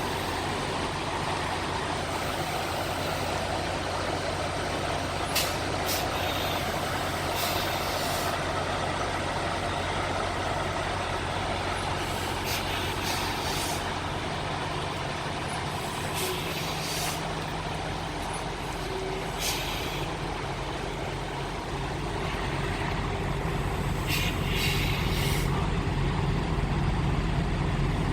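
Semi-truck's diesel engine running low and steady during a slow reverse, with several short hisses of air from the air brakes. The engine gets louder in the last few seconds.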